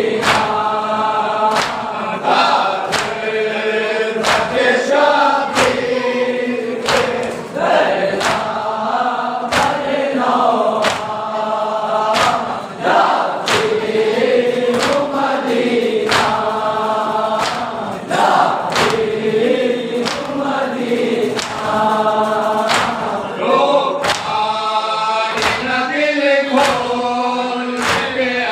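Group of men chanting an Urdu noha, a Shia mourning elegy, in unison, with the sharp slaps of matam, hands striking chests together, keeping an even beat about once a second.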